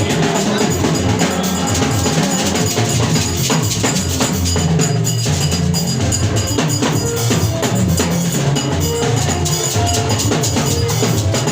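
Church worship band music: a drum kit and hand percussion keep a busy beat over a moving bass line.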